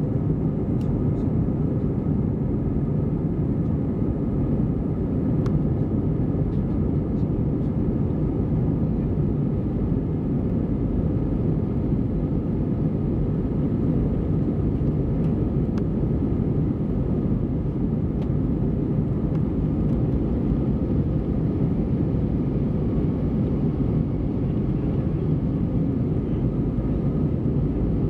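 Steady cabin noise of a jet airliner in flight, heard from a window seat: an even, low rumble of engines and rushing air.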